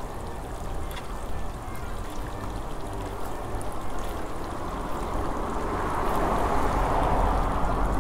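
Wind blowing across the microphone: a low rumble throughout, with a gust swelling up over the last couple of seconds.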